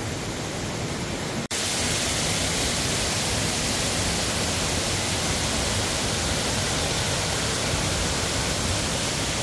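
Rushing mountain creek over rocks. After a cut about a second and a half in, the steady, louder rush of a waterfall cascading down a rock face.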